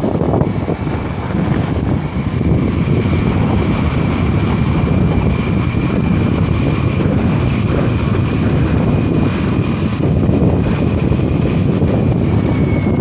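Steady wind rumble on the microphone over the running noise of a vehicle moving through traffic, with a faint high steady whine that drifts slightly lower near the end.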